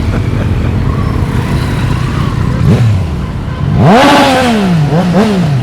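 Motorcycles pulling away, engines rumbling at low revs; about four seconds in one engine revs up loudly and falls back, then gives two quick blips of the throttle.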